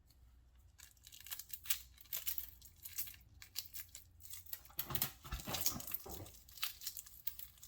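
Shell being peeled by hand off a cracked hard-boiled egg: irregular small crackles and clicks of shell pieces breaking away and the membrane tearing, starting about a second in.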